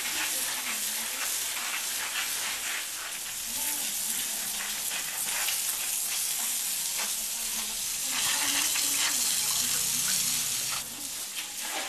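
Water from a garden hose's pistol spray nozzle hissing and spattering as it is sprayed onto a tiled floor and a rug, washing them down. The spray grows louder for a couple of seconds about two-thirds of the way through.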